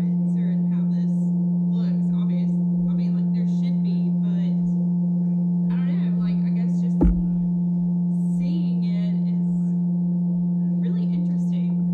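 Vevor electric cream separator running, a steady pitched motor hum as the bowl spins. A single sharp knock about seven seconds in.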